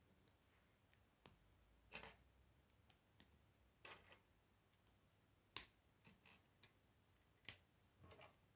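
K'nex plastic rods and connectors clicking as they are handled and snapped together: a scatter of faint, sharp clicks and short rustles, the sharpest a little past halfway.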